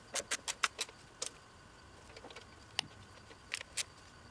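Hand ratchet clicking quickly, about six clicks a second, as valve cover bolts are run down. It stops about a second in, followed by a few single clicks.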